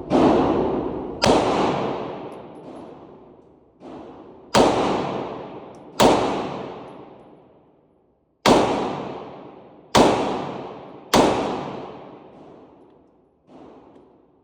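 Glock 45 9mm pistol firing single shots at an uneven pace, seven loud reports one to two and a half seconds apart, each with a long echoing decay. Two fainter shots come in between.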